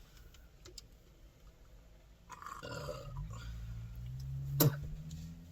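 A long, low burp from a woman gulping carbonated soda starts about two seconds in and trails off into a low hum, with one sharp click near the end.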